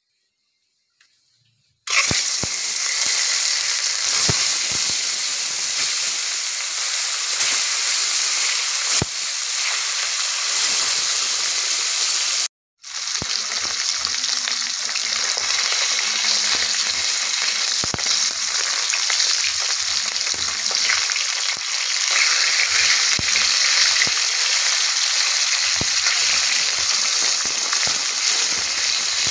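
Pieces of rohu fish and potato halves sizzling loudly as they shallow-fry in hot oil in a steel kadai, a steady crackling hiss. It starts suddenly about two seconds in and cuts out briefly near the middle before going on.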